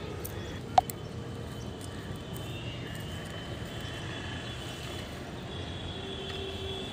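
Steady low rumble of city traffic, with one sharp click about a second in.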